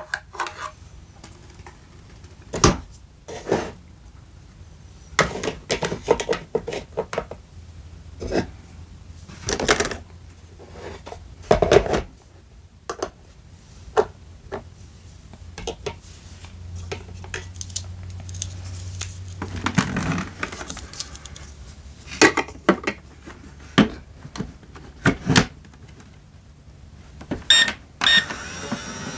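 Small toy kitchenware and utensils being handled: irregular light clicks, taps and clatter, some sharper knocks among them, over a faint low hum.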